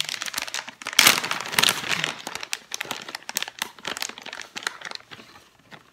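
A plastic bag of mozzarella cheese crinkling as it is handled. It is loudest about a second in and dies away toward the end.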